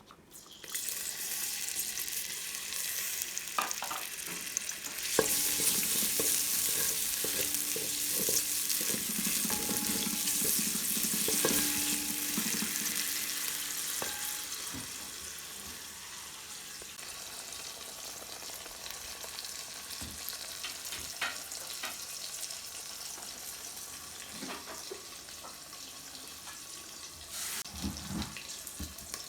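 Food frying in hot oil in a pan: it starts sizzling about half a second in and is stirred, with utensil knocks and scrapes against the pan. The sizzle is loudest in the first half and settles to a quieter steady sizzle, with a few knocks near the end.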